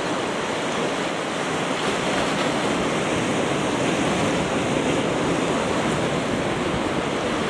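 Sea surf washing and breaking against a rocky shore: a steady rush of water.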